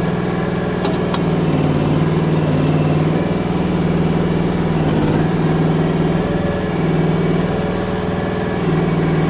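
Chinese mini excavator's engine running steadily, its pitch swelling and easing slightly as it works, with a few light clicks in the first three seconds.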